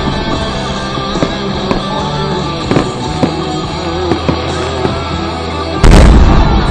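Guitar-driven rock music playing loudly through a fireworks display, with a few sharp firework pops, then one loud firework boom about six seconds in that is the loudest sound.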